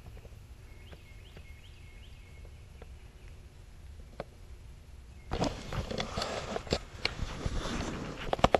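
Footsteps crunching and rustling through dry leaf litter, starting about five seconds in after a quiet stretch. A few faint, high bird chirps come before them.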